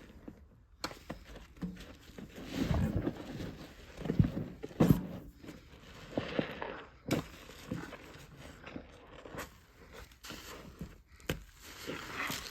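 Soapy wet sponge being squeezed and crushed by hand, squelching in irregular bursts, loudest from about two to five seconds in, with a few sharp clicks later.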